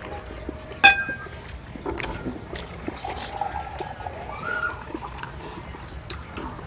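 Eating sounds: a sharp clink of a utensil or dish about a second in, then scattered small clicks and wet, liquid sounds.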